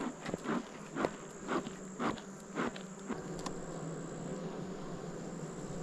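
Honeybees buzzing steadily from an open, crowded hive. A run of about seven short scraping knocks, about two a second, comes in the first three seconds as the hive is worked, then only the buzz goes on.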